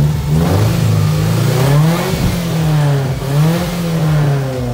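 Subaru Impreza's flat-four engine being revved while parked, the revs climbing and dropping back several times.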